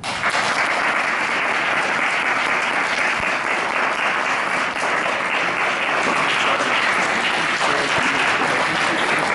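Audience applauding, breaking out all at once and keeping up steadily.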